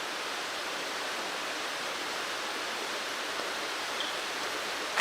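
Mountain stream rushing: a steady, even rush of water.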